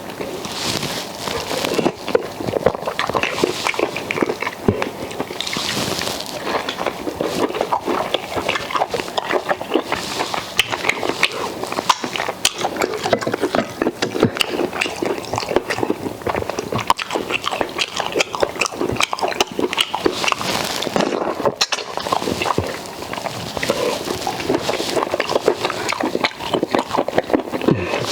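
Close-up eating sounds: a person chewing grilled pork and fufu with okra soup, with continuous wet smacking and clicking of the mouth.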